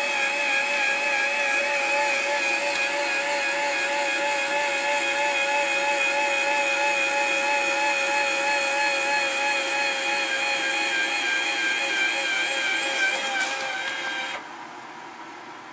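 12-volt DC linear actuator's motor whining steadily as it extends and pushes a greenhouse vent panel open. It cuts off suddenly about fourteen seconds in.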